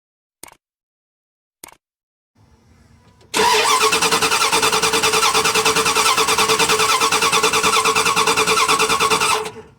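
Starter cranking a Dodge Ram or Dakota Magnum gas engine for about six seconds, a fast, even chugging that stops suddenly without the engine ever catching: a crank-no-start, with no spark reaching the plugs. Two light clicks come just before the cranking.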